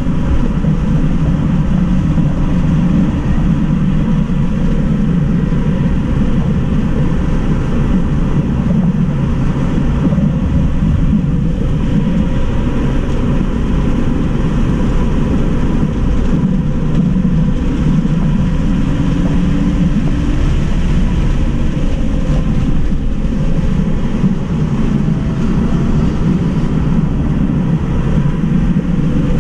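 Cabin noise of a Tesla Model 3 Mid Range RWD being driven hard through corners at around 50 mph: a loud, steady rumble of road, tyre and wind noise. A faint steady whine sits above it, and there is no engine sound.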